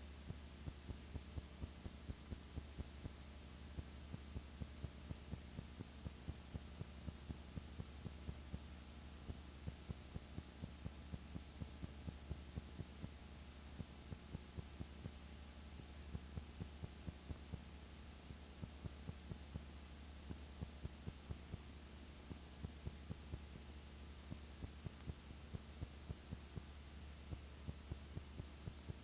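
Steady low hum with faint clicks about four a second, coming in runs with short pauses; no speech or music.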